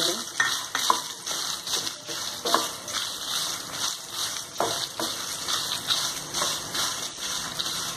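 Dry red chillies with coriander, cumin and fenugreek seeds sizzling in a little oil in a kadai, with a steady hiss. A wooden spatula stirs them, scraping and tapping against the pan a few times.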